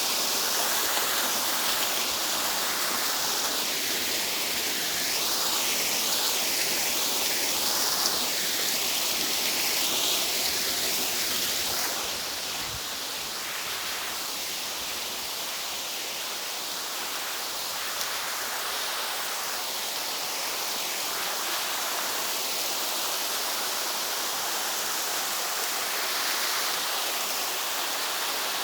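A waterfall's water pouring and rushing steadily. It gets a little quieter about twelve seconds in.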